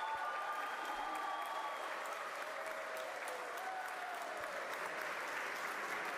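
Crowd applauding and cheering steadily, with voices calling out among the clapping, greeting the first payload being pushed out of the ship.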